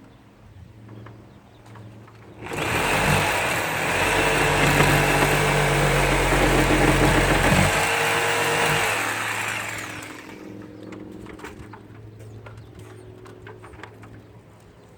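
An electric power tool's motor switches on suddenly, runs loud and steady for about five seconds, then winds down and fades over the next two seconds.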